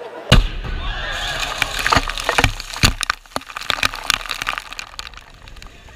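A liquid-nitrogen bottle bomb bursts underwater in a 55-gallon water barrel with one loud bang, the gas pressure having built to about 300 PSI. For about three seconds after, water and spray rain down in a scatter of sharp cracks and splashes that thin out.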